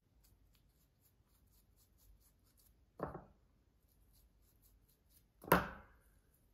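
Handling noise while hair dye is worked in: faint, rapid ticking and rustling of hair and gloves, broken by two sudden knocks, about three seconds in and a louder one near the end as the tint comb is set down.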